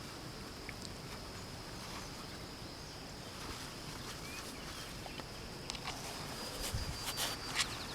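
Outdoor garden ambience with a thin, steady, high insect drone. A few short clicks and rustles come near the end as the string is handled.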